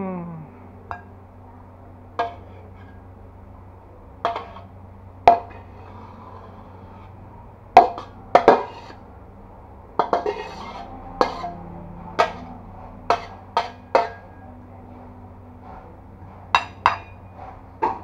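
A metal spatula clanking and scraping against a wok while stir-fried water spinach is scooped and tapped out onto a plate: a series of sharp, irregular clanks, some in quick pairs, over a low steady hum.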